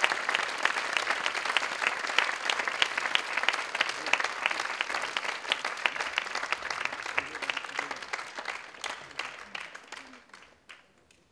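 Audience applauding, the clapping thinning out and dying away over the last few seconds.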